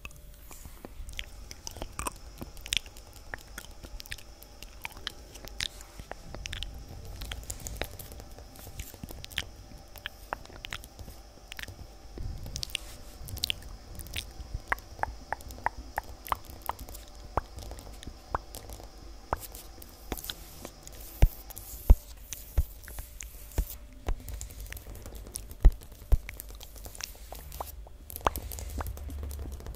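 Fingertips and fingernails tapping on a hard floor in quick, irregular clicks, with a handful of much louder taps about two-thirds of the way through. Wet mouth sounds are mixed in.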